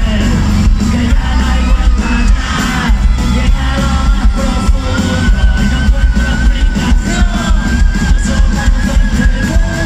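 Live rock band playing loudly with heavy bass, heard from within the audience, with singing and crowd voices mixed in. A long high note is held from about halfway through.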